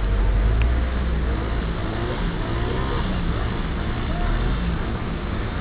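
Heavy rain and floodwater making a steady hiss and wash, with a deep rumble for about the first half and faint voices underneath.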